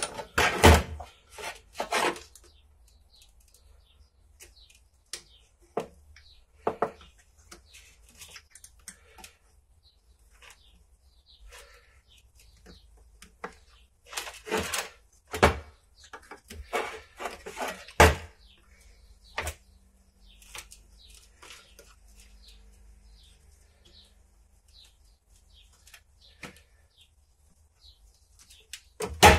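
Scattered clicks, taps and knocks of screwdrivers and small metal parts against a motorcycle front brake master cylinder and a metal tray as the master cylinder is taken apart. The knocks come in clusters, with louder ones at the start and about halfway through.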